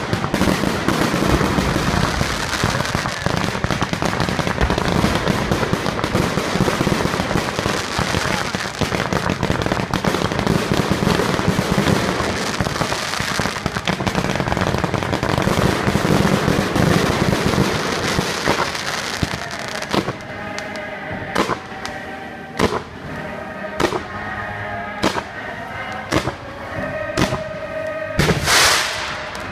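Aerial fireworks display: a dense, continuous barrage of bursts and crackle for about twenty seconds, then single sharp bangs roughly once a second, with music playing underneath.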